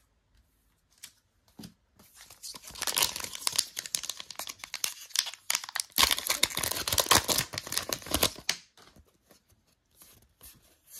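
Kayou Naruto trading card booster pack being torn open, its shiny plastic wrapper ripping and crinkling in a dense crackle from about two and a half seconds in until shortly before the end, then a few light clicks as the cards are handled.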